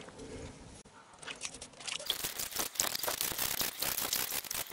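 Bristle brush scrubbing a small plastic crankshaft position sensor in a barrel of water, with splashing and rapid scratching, washing the grime off it. It starts faintly about a second in and is busiest from about two seconds in.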